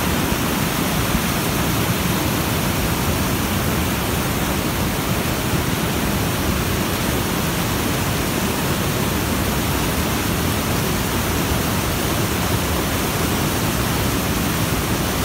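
Rain-swollen stream rushing over rocks in whitewater rapids, a loud, steady wash of water noise.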